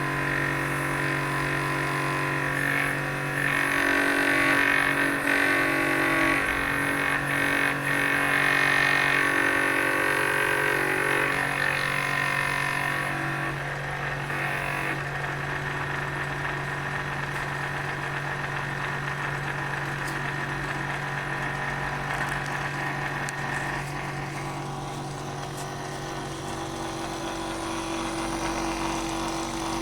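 Bench drill press motor running steadily, spinning a chisel handle that is being turned on it like a lathe. For several seconds in the first half the turning cut adds a louder, rougher rasp.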